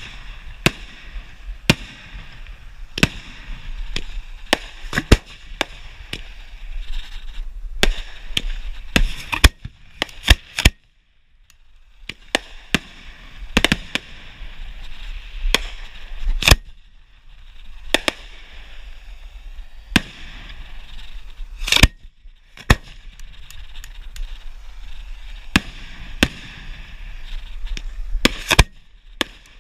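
Fireworks display heard from the firing line: sharp bangs of shells launching and bursting in quick, irregular succession, with crackling between them over a low steady rumble. The bangs pause briefly about eleven seconds in, then carry on.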